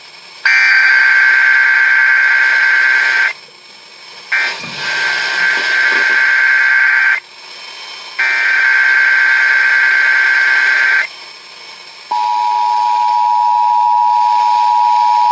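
Emergency Alert System National Periodic Test received on an FM radio. Three bursts of SAME header data tones, each a buzzing squeal of about three seconds with about a second's gap between them. About a second after the third burst, the steady two-tone EAS attention signal begins and holds.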